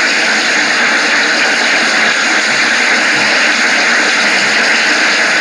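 Steady, loud hiss with nothing else in it, strongest in the upper-middle range: the recording's own background noise while the talk pauses.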